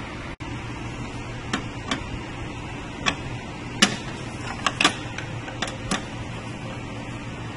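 Scattered light clicks and taps of a screwdriver working a screw out of the plastic unit cover of a Ricoh MP C300 copier, about a dozen at uneven intervals, over a steady low hum.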